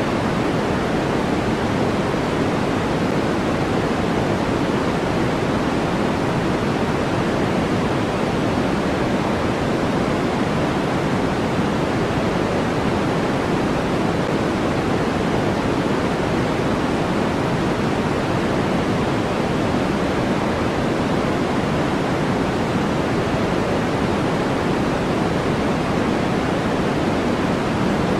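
Steady, unchanging white noise track for sleep and focus, a smooth hiss weighted toward the low mids and falling off in the highs, with no events or variation.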